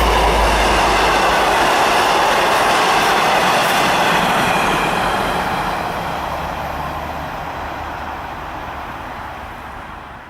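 Broad-gauge diesel-hauled train rolling past: a steady rush of wheels on rail with a low rumble from the diesel locomotives at first, then the whole sound fades away over the last five seconds as the train draws off.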